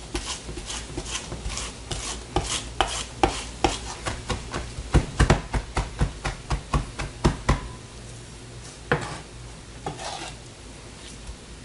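Chef's knife rapidly mincing fresh parsley, thyme and garlic with salt on a plastic cutting board: a run of sharp knocks, about three a second, that stops about two-thirds of the way in, followed by a couple of single knocks and softer scraping as the minced herbs are gathered.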